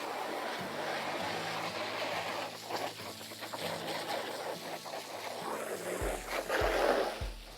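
Water from a garden hose running and splashing into a pig's plastic pool: a steady rushing splash that swells near the end. A steady low beat of background music starts about six seconds in.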